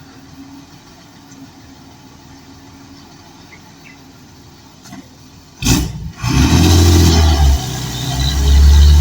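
A faint low hum, then about five and a half seconds in an engine starts abruptly and runs loud with a steady low drone.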